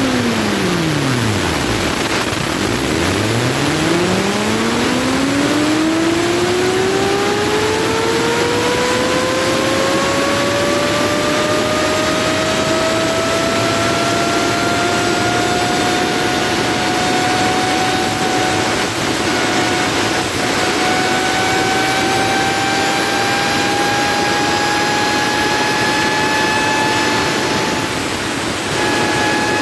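Electric motor spinning a 3D-printed robot-dog wheel: its whine falls as the wheel slows to a stop about two seconds in, then rises as it spins back up and settles to a steady higher pitch, over a steady hiss.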